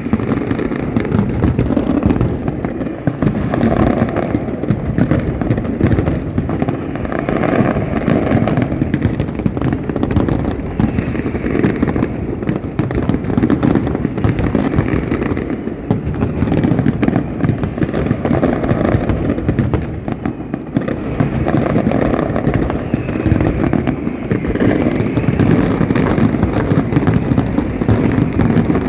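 Fireworks display: a dense, unbroken barrage of bangs and crackling reports, many shells bursting at once without a pause.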